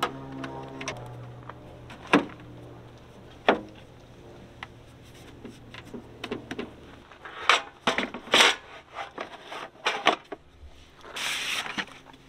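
Irregular sharp knocks and clicks of objects being handled, several in quick succession about eight seconds in, then a short hiss of about a second near the end.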